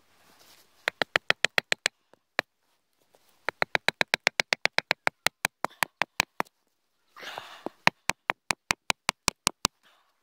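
A piece of wood rapidly tapping a wooden peg home into a hole in a hardwood log, in three quick runs of sharp knocks at about six a second. There is a short rustle of handling before the last run.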